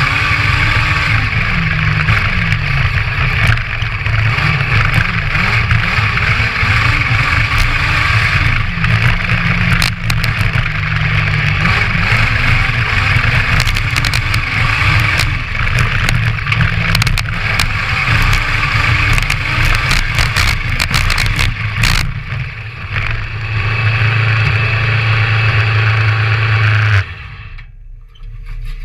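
Honda CBR1000 motorcycle inline-four engine of a homemade crosskart buggy running under load, revving up and down as it drives over sand and dirt, with scattered knocks. Near the end the engine sound cuts off suddenly and it goes much quieter.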